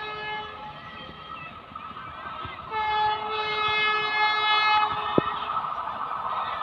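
Approaching Vande Bharat Express sounding its horn: a fading horn note at first, then a long blast from just under three seconds in to about five seconds. Under it, the train's running noise grows steadily louder as it nears.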